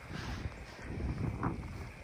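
Blizzard wind buffeting the microphone in uneven gusts of low rumble.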